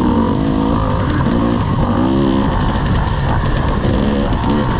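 Off-road race engine revving up and easing off again and again while racing over trail, its pitch rising and falling several times over a rough, rumbling low end.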